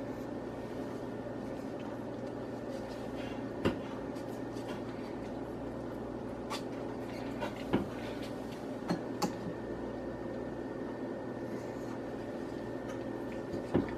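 A few sharp clicks and knocks, spread out, from a plastic meat-injector syringe being handled while white wine is drawn up and injected into a raw turkey in a metal roasting pan. Under them runs a steady low hum.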